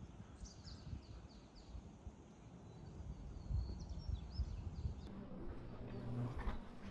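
Small birds chirping, several short calls in the first few seconds, over a low rumbling outdoor background; a few soft knocks, like steps, near the end.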